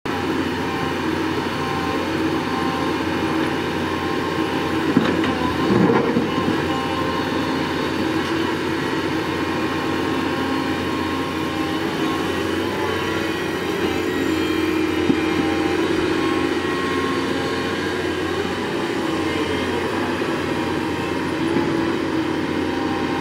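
Doosan DX225LCA crawler excavator running steadily as it digs, its diesel engine and hydraulics giving a constant drone, with a couple of knocks about five and six seconds in.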